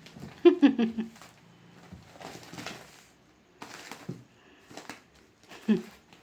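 Cats play-fighting: bursts of scuffling and rustling, with a short loud vocal cry about half a second in and a briefer one near the end.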